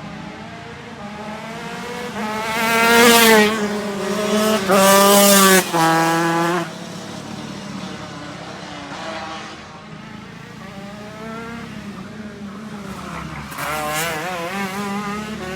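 Racing car engines running at high revs, pitch rising and falling, loudest in two stretches a few seconds in, the second breaking off suddenly. A quieter engine sound follows, with a short wavering swell near the end.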